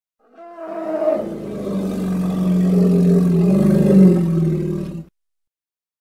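Hippopotamus roar from a film soundtrack: one long, low, pitched bellow that swells, lifts in pitch briefly near its loudest point, and cuts off suddenly.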